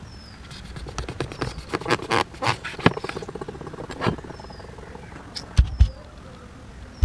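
Passion fruit pulp being scooped out into a plastic bowl: a run of quick clicks and scrapes, then two dull thumps near the end.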